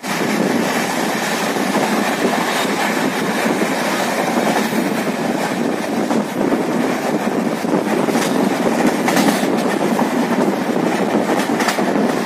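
Passenger train running at speed, heard from on board: a steady rumble of wheels on rails with occasional sharper clacks.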